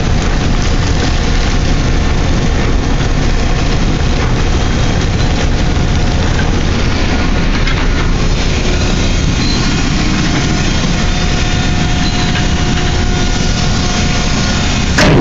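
Steady, loud din of heavy machinery at a truck-trailer dumper for wood chips, with a few faint steady whining tones in it.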